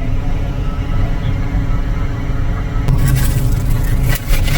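Steady low rumble of a car's engine and cabin, heard from inside the car. A louder hiss with crackles joins about three seconds in.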